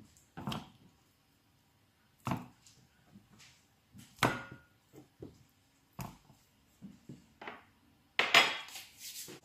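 Raw salmon pieces being handled and moved around in a glass dish: a handful of separate knocks and clinks of fish and fingers against the glass, roughly every two seconds, with a longer, louder clattering scrape near the end.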